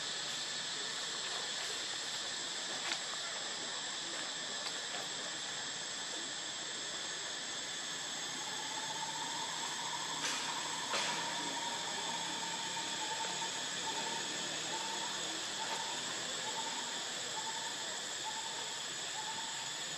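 Steady high-pitched insect drone. From about halfway through, a bird repeats a short hooting note about every two-thirds of a second, with a couple of brief clicks just before.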